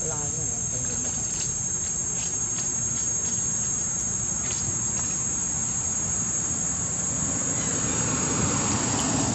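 Steady high-pitched drone of an insect chorus, with a few faint clicks in the first half. About three-quarters of the way through, the rushing noise of an approaching engine grows louder.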